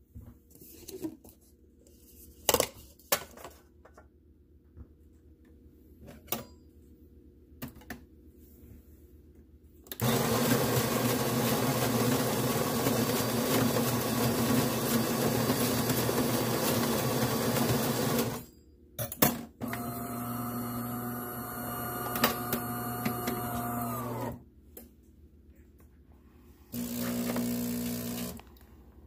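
De'Longhi Magnifica XS bean-to-cup espresso machine: a few clicks, then its built-in grinder grinding coffee beans loudly for about eight seconds. After a short pause the machine runs more steadily with a whine for about five seconds as it brews. A short pump hum comes near the end.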